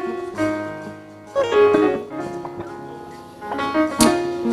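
Background music with slow, sustained chords and notes that change about every second or two.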